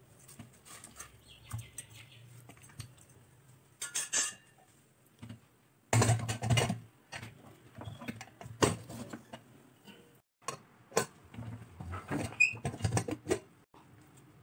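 Metal clinks and scrapes of a steel slotted spoon stirring mutton in a steel pressure cooker, then clanks as the pressure-cooker lid is put on and locked, with the loudest clatter about six seconds in.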